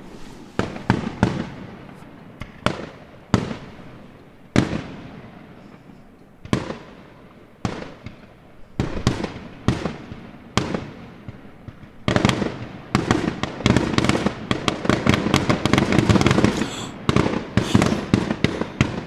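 Fireworks exploding: a string of separate loud bangs, each trailing off in a short echo, then about twelve seconds in a dense rapid volley of bangs and crackles lasting several seconds before single bangs return near the end.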